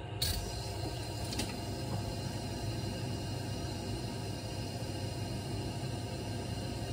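Steady low hum with a soft hiss from a lit gas stove burner heating a pot, with a faint tap or two in the first second and a half.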